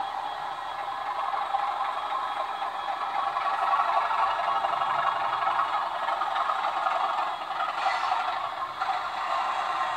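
Model diesel locomotive running along a model railway layout: a steady mechanical running sound with clatter and rattle, a little louder through the middle.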